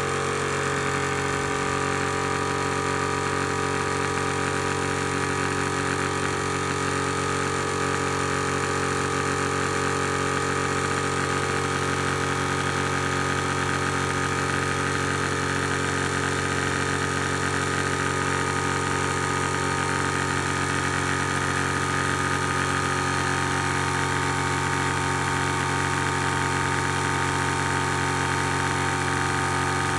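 Zhongyan water-cooled PCP high-pressure air compressor running steadily while filling an 18 cubic inch air cylinder, partway through the fill at about 2000 psi.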